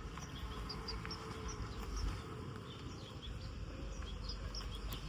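Outdoor ambience: many short, high-pitched chirps scattered throughout, over a steady low rumble.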